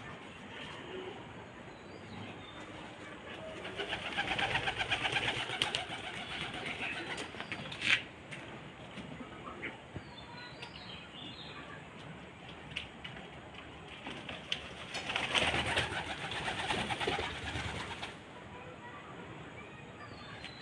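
Pigeons cooing, with two spells of rustling a few seconds long and a single sharp click about eight seconds in.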